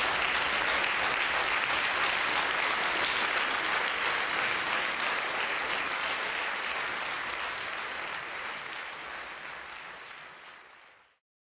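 A concert hall audience applauding steadily, fading out near the end.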